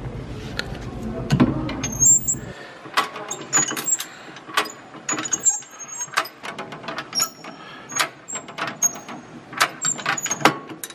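Hand-cranked souvenir penny press being turned, its mechanism giving a run of irregular metallic clicks and clunks with short high squeaks as the rollers press the penny.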